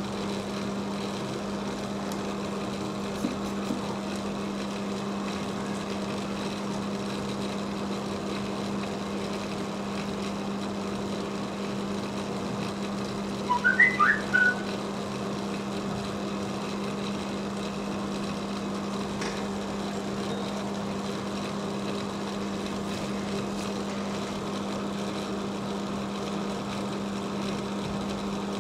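Steady electrical hum from bench equipment, with a brief cluster of short, high, whistle-like chirps about halfway through.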